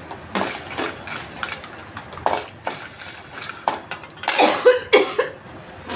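Bursts of harsh coughing and sneezing, brought on by pungent sun-dried chilli (vathal) fumes. There is a louder cluster of coughs near the end, and sharp metallic clinks of a pan and utensil in between.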